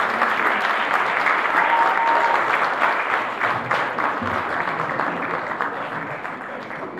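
Audience applauding, the clapping fading away toward the end.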